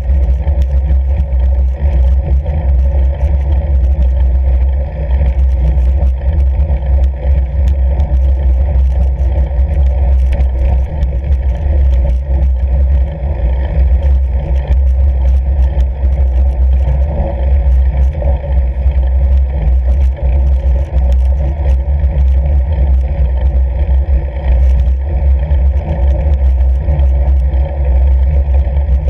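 Steady low wind noise on the microphone as a fat bike rides over snow-covered lake ice, with many small clicks and crackles from the tyres on the snow and the rattling bike.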